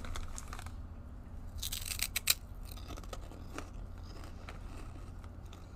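A crinkly plastic snack bag rustling with a few sharp crackles as a chip is taken out, then fainter crunching as the crisp bacon-flavoured chip is bitten.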